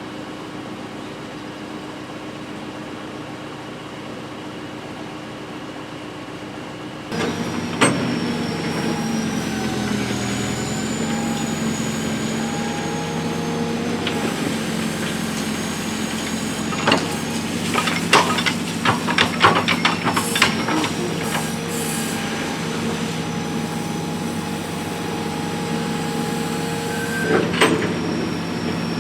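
Case 780 backhoe's diesel engine running steadily, quieter for the first seven seconds and then suddenly louder, with a high hydraulic whine that wavers in pitch. A quick run of sharp knocks comes about two-thirds of the way in, and another near the end.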